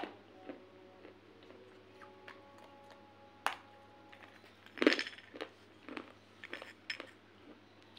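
Shards of a fired clay pot bitten and crunched between the teeth and snapped by hand: a string of sharp, brittle cracks and clinks. The loudest burst comes about five seconds in, with smaller cracks after it.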